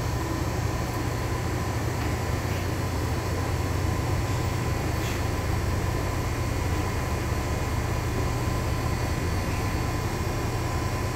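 Inside a LiAZ-6213.22 articulated diesel city bus under way: a steady low engine hum under road noise, with a thin steady whine and a few faint rattles.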